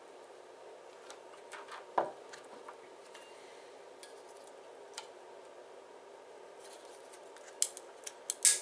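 Clear acrylic and polycarbonate plates handled against a steel fixture plate: a few sharp clicks and taps, a loud one about two seconds in and a quick cluster near the end, over a steady low hum.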